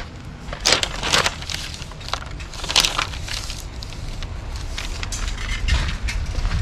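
Footsteps crunching on gravel: a few short, sharp crunches at an uneven pace, the loudest about a second in and near three seconds, over a steady low rumble.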